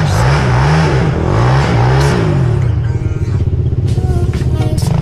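Quad bike (ATV) engine revving up and down repeatedly, its pitch rising and falling several times as the quad works its way up a steep slope, then settling into a rougher, uneven running. A heavy low rumble of wind on the microphone sits under it.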